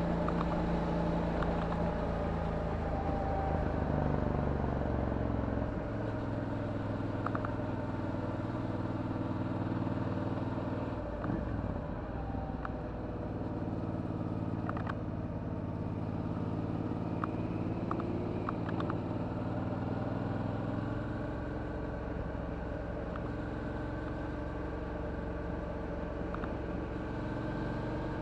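Suzuki DL650 V-Strom's 645 cc V-twin running through a titanium Akrapovic exhaust while riding at road speed. The engine note drops and climbs again about eleven seconds in.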